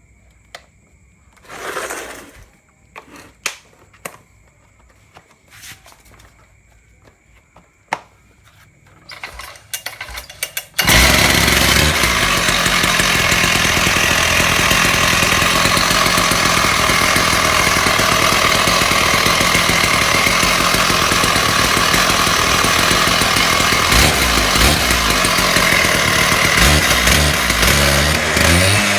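Husqvarna petrol concrete saw: a few knocks and a short rasp in the first seconds, then about 11 seconds in its two-stroke engine suddenly comes in loud and runs steadily.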